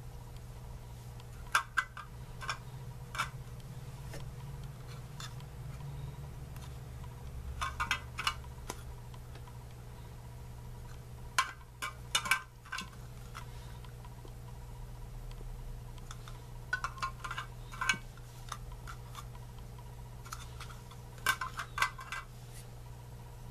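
Hard plastic sieve frames clicking and knocking against each other as they are handled, in short clusters of sharp clicks every few seconds. A steady low hum runs beneath.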